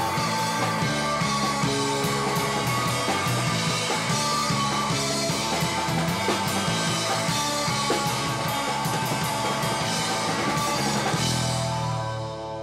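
Live rock band playing, with drum kit, cymbals, electric guitar and bass. About eleven and a half seconds in the drums stop and held guitar and bass notes ring on more quietly.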